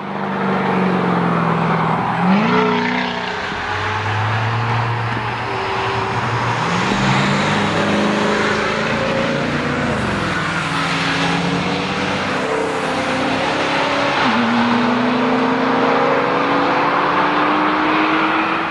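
Mercedes-Benz CLK AMG DTM's supercharged 5.4 L V8 with a catless exhaust, running hard as the car accelerates. The engine pitch climbs and drops several times as it changes gear.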